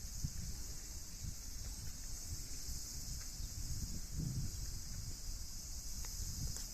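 A steady, high-pitched insect chorus droning without a break, over an uneven low rumble.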